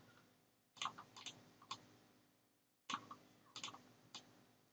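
Near silence with about ten faint computer mouse clicks, scattered in small clusters.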